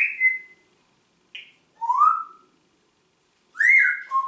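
Congo African grey parrot giving a run of about five short whistled calls with gaps between them, several sliding upward in pitch.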